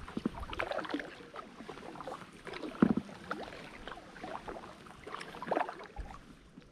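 Water splashing and knocking around an Itiwit X100+ drop-stitch inflatable kayak as it is paddled, in irregular strokes. The loudest splash or knock comes about three seconds in, and the sounds die down near the end.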